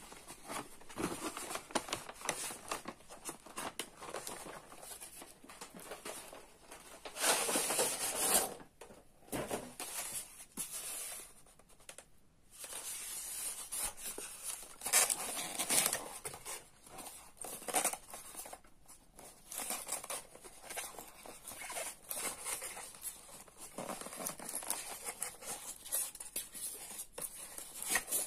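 Unboxing handling noise: a cardboard box, its plastic tray and paper wrapping rustling, scraping and crinkling in irregular bursts, loudest about seven and fifteen seconds in.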